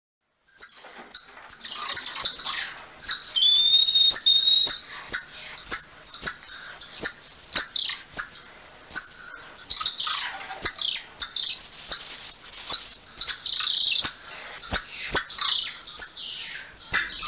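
Golden lion tamarins calling: a fast run of high-pitched chirps and clicks, with two long whistled notes, one about three seconds in and another around twelve seconds.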